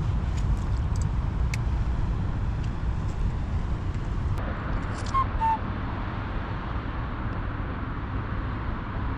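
Steady low rumble of wind on the microphone, with a few faint clicks near the start and two brief faint chirps about five seconds in.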